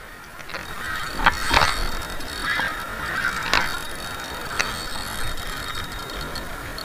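Spinning fishing reel being cranked: a gear whirr with a few sharp clicks, the loudest about a second and a half in and again near three and a half seconds.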